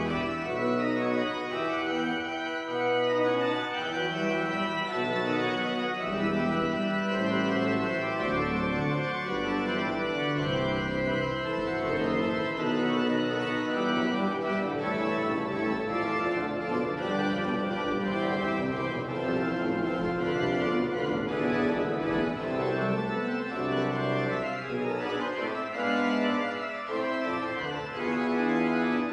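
Pipe organ playing a piece with many voices at once, sustained notes changing continuously and low bass notes moving beneath.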